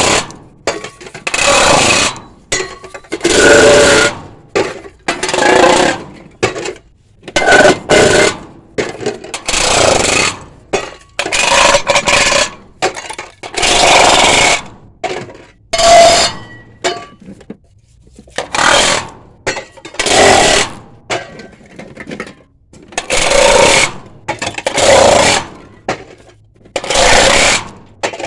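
Aluminium drink cans being crushed one after another, each a short crinkling, crunching burst of metal with a little ringing. About one can every second or so, more than a dozen in a row.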